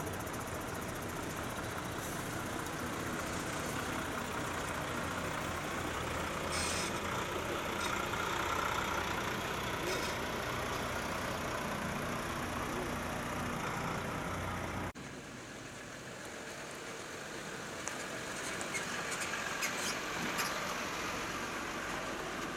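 Volvo FM vacuum tanker truck's diesel engine running as it rolls slowly past. After an abrupt cut about two-thirds through, a second truck's engine is heard approaching, quieter and more distant.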